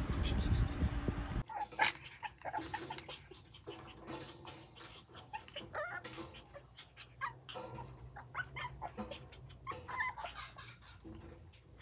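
After a second and a half of low microphone rumble, a puppy whimpers and yips again and again in short cries, with sharp clicks and rattles as it paws at a wire-mesh pen.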